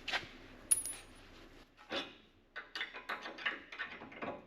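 Metal parts and tools being handled: a sharp ringing clink, then a quick run of clicks and clatter.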